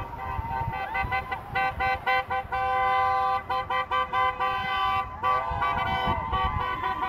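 Car horns honking from passing traffic, drivers signalling support for the protest: a run of short toots and longer held blasts, several horns at different pitches overlapping, over the rumble of cars driving by.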